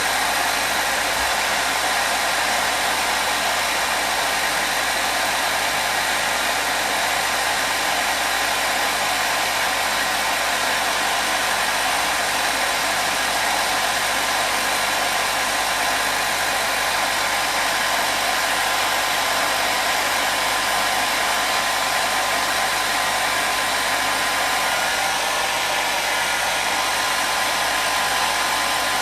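Hair dryer blowing steadily: an even, unbroken whoosh with a faint motor whine, played as continuous white noise for soothing a baby.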